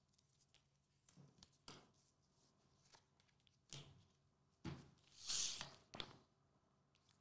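Quiet handling of trading cards and foil card packs on a table mat: a few faint taps and clicks, with a short crinkle of foil pack wrappers about five seconds in.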